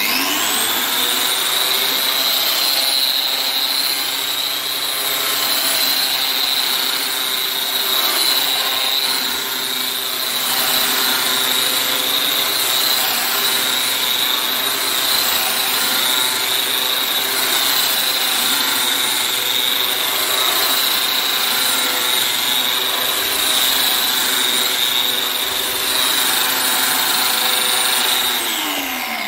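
Round-head wall sander with a vacuum dust hose running steadily, with a high whine, its pad ground against a concrete wall to strip a layer of old wallpaper glue. It spins up at the start and winds down just before the end.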